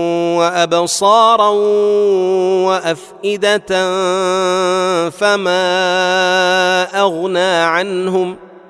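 A man's voice reciting the Quran in melodic tajweed style, drawing out long, wavering held notes. There is a brief pause about three seconds in, and the phrase fades away near the end.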